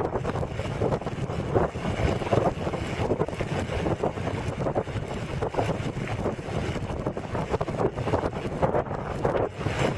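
Wind buffeting the camera's microphone as it moves along at riding speed: an uneven rushing noise with frequent small gusts.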